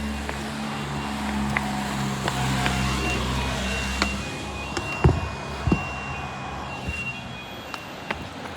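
A motor vehicle engine running with a low hum that fades about four seconds in. Two sharp knocks follow about half a second apart, and a faint high thin tone sounds on and off.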